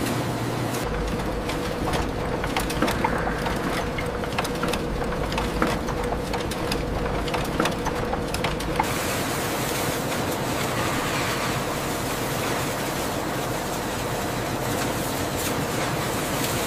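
Printing press running: a steady mechanical hum with a faint held tone and scattered clicks and clatter. About nine seconds in, the clicking thins out and the running turns to a smoother, hissier whir.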